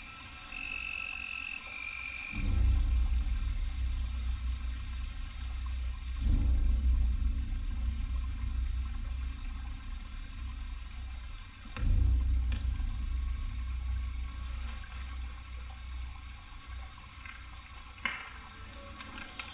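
Film soundtrack played loud through a home theater system of electrostatic speakers and subwoofers: deep bass rumbles swell in sharply three times, at about two, six and twelve seconds, each holding for several seconds over a quieter steady background. There is a brief high two-note tone about a second in.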